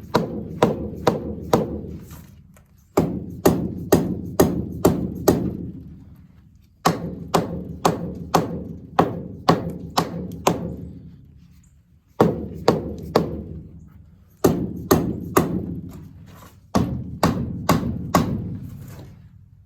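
Hammer tapping repeatedly on the cylinder head of a Rumely 6A tractor engine to break it loose from its head gasket and slide it off the studs. The blows come in six runs of about three a second with short pauses between, each blow leaving a low ringing.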